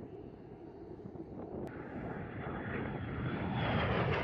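Jet engine of an F-35A Lightning II fighter growing steadily louder as the jet approaches, a rushing roar with a thin high whine over it for a couple of seconds near the end.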